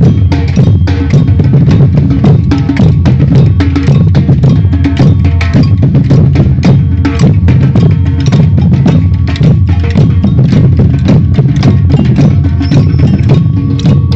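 Batucada samba percussion band playing loud: deep bass drums under a dense, driving run of sharp drum strikes.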